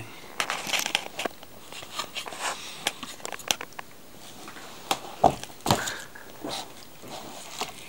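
Handling noise: irregular taps, rustles and knocks as a model locomotive's cardboard box and its packaging are turned over and moved about, with a sharper knock a little after five seconds in.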